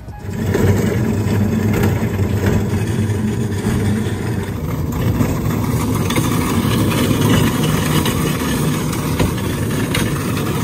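Wheels of a loaded mail hamper cart rolling and rattling over a concrete sidewalk, starting about half a second in and carrying on steadily.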